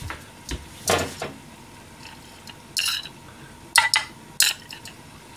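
A metal spoon clinking and scraping against a small metal bowl and a frying pan as cooking oil is spooned into the pan: a couple of clinks about a second in, another near three seconds, then a quick run of sharp clinks about four seconds in.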